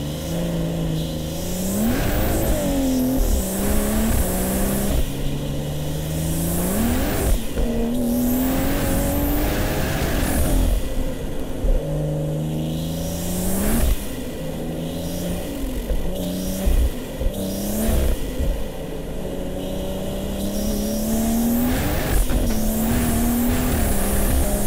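Big-turbo BMW M240i's B58 straight-six accelerating hard through the gears of its 8-speed ZF automatic. The engine note climbs in pitch, then drops back at each upshift, several times over.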